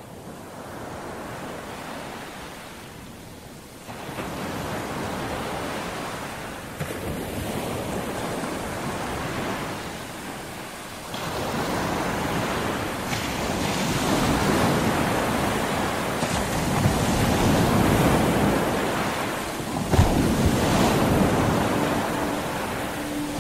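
Sea waves breaking and washing ashore, swelling and falling in turn, with wind buffeting the microphone.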